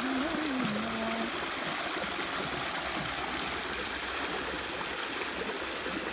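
Shallow stream rushing and splashing over rocks in a small cascade, a steady even rush of water. A voice trails off in the first second.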